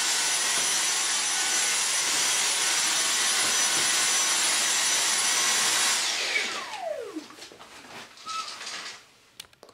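Dyson V6 Absolute cordless stick vacuum with its soft roller cleaner head running on wooden floorboards, sucking up dust and cat hair: a steady rush of air with a thin high whine. About six seconds in it is switched off and the motor's whine falls steeply in pitch as it spins down, leaving only a few faint handling sounds.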